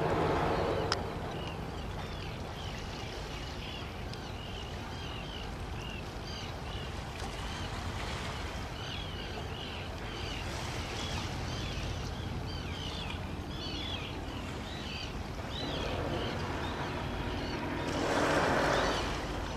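Harbor ambience: steady wind and water noise, with many short high chirps throughout. The noise swells louder briefly near the start and again near the end.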